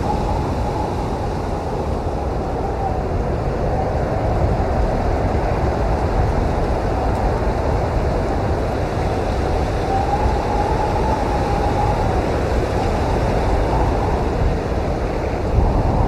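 Blizzard wind blowing steadily with a deep rumble and a faint, wavering whistle that swells and fades, loudest about ten seconds in.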